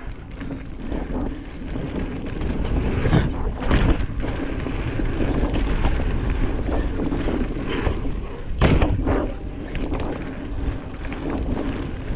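Wind rushing over the microphone and a Specialized Stumpjumper Evo mountain bike's tyres rolling fast over a dirt trail, with sharp knocks and rattles from the bike hitting bumps about three and four seconds in and again near nine seconds.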